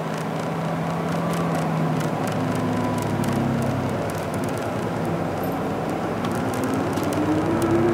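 Isuzu Erga QPG-LV234L3 city bus under way, heard from inside: its diesel engine runs steadily over road noise, and the engine note rises near the end as the bus picks up speed.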